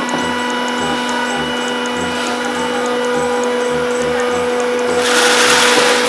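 Jigsaw factory machinery running with a steady hum and a fast, light ticking. A louder hiss lasts about a second near the end.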